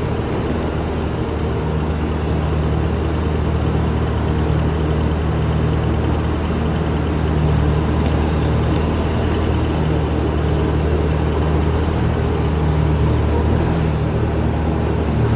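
Diesel engine of a Bobcat T550 compact track loader running steadily at idle.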